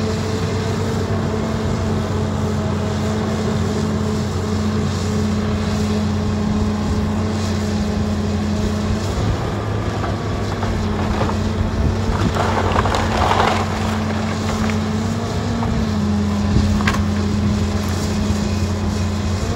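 John Deere 270C LC excavator's diesel engine running steadily, its pitch shifting a couple of times as the arm works. Wood cracks and splinters as the barn wall is torn apart, loudest about two-thirds of the way through, with one sharp crack near the end.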